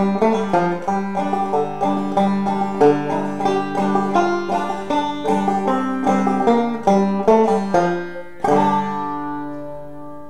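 Banjo played clawhammer style in sawmill tuning: a quick run of plucked old-time melody notes, ending about eight and a half seconds in with a final strummed chord left ringing and fading away.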